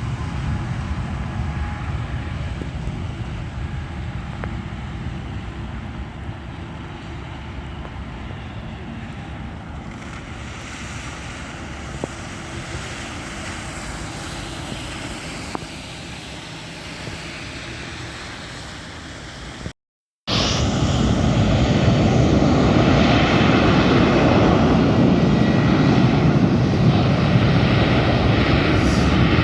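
Airliner engines running, a steady noise that slowly fades over about twenty seconds. After an abrupt cut, a much louder, steady airliner engine noise takes over to the end.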